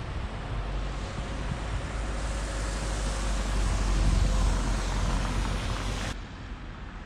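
A road vehicle passing close by: tyre and engine noise building to a peak about four seconds in, then cut off suddenly.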